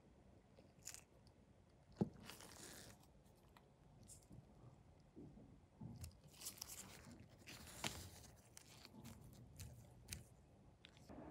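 Small plastic model-kit parts being handled and fitted: a sharp click about two seconds in, then faint scratchy scraping and a few clicks as a small screwdriver turns a tiny screw in the front wheel and brake caliper assembly.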